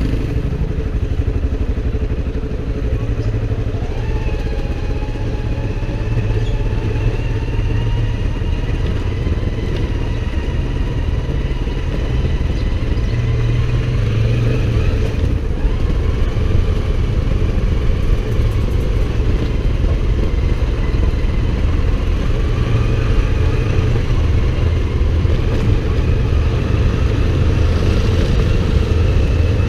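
Motorcycle engine running steadily while riding, over a continuous low rumble. Its whine climbs slowly, falls away about fifteen seconds in, then climbs again.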